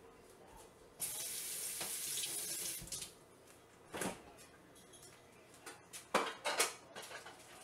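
Kitchen sink tap running in a steady hiss for about two seconds, starting about a second in and cut off, followed by a few sharp knocks of kitchenware.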